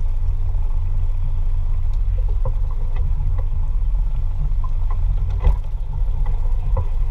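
Boat engines idling with a steady low rumble, with scattered small knocks and a single sharp thump about five and a half seconds in.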